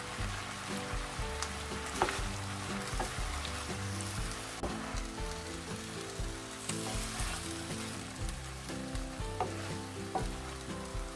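Sundae, cabbage and other vegetables sizzling as they stir-fry in sauce in a pan, being turned with wooden utensils, with a few sharp clicks of the utensil against the pan, the loudest about two seconds in.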